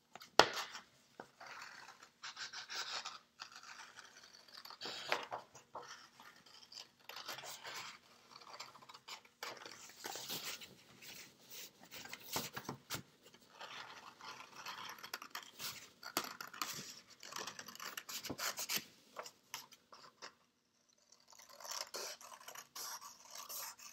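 Scissors cutting a circle out of a sheet of paper, a series of irregular snips and paper rustles, with a brief pause near the end.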